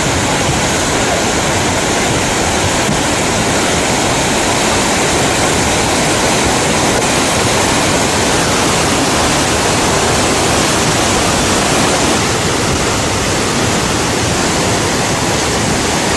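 Flash-flood water rushing down a gorge, a loud, steady roar without a break.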